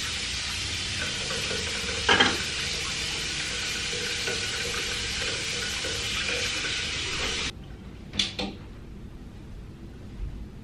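Bathroom sink tap running, water splashing into the basin as hands are washed, with a sharp knock about two seconds in. The water cuts off suddenly as the tap is shut, then come two small knocks.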